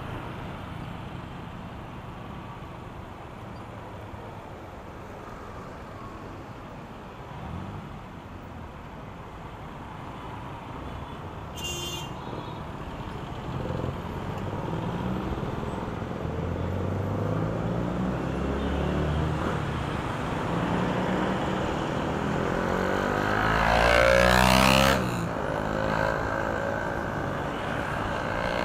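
City traffic heard from a moving electric scooter: steady road and wind noise, with car and motorcycle engines running alongside. A brief high-pitched tone sounds about twelve seconds in. A vehicle passes close near the end and is the loudest sound.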